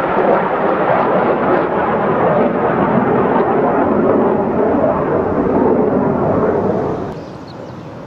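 Jet roar from a US Navy Blue Angels F/A-18 Hornet's twin turbofan engines as the jet flies overhead, loud and steady, then dropping off noticeably about seven seconds in as it moves away.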